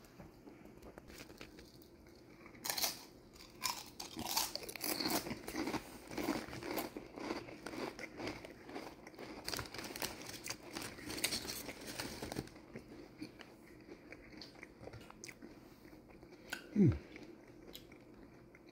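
A mouth crunching and chewing ridged Ruffles potato chips, with many quick crisp crunches through the first two-thirds, then softer chewing. Near the end comes a short, loud hum that falls in pitch.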